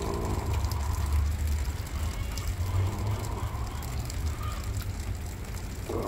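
Wind buffeting the microphone, a low, uneven rumble.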